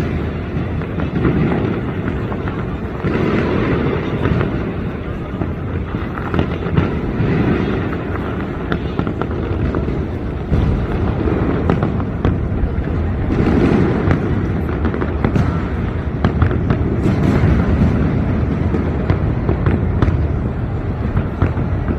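New Year fireworks going off: a continuous run of bangs, pops and crackles, many overlapping.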